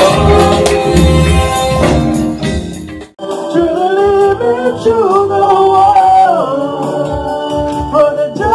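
A man sings into a microphone over loud backing music with a heavy bass beat. About three seconds in, the sound cuts off abruptly and a sung melody with long held notes follows over lighter accompaniment.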